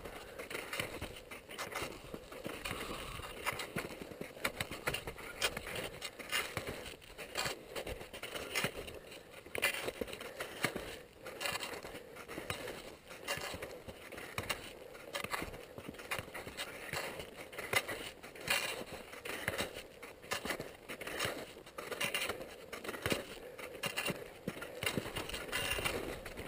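Alpine touring skis scraping over snow on a downhill run, a quick irregular series of swishes from turn after turn.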